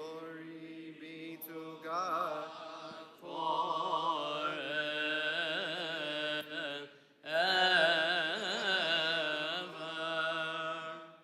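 Voices chanting a drawn-out, ornamented church melody in Coptic liturgical style, with a brief break about 7 seconds in, ending the Gospel reading.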